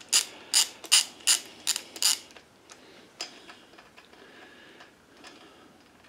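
A ratcheting tap handle clicks in a steady rhythm, about two and a half clicks a second, as it turns a pipe tap cutting threads into an aluminum engine cover. After about two seconds the clicking stops, leaving only a few faint ticks as the tool is taken off the tap.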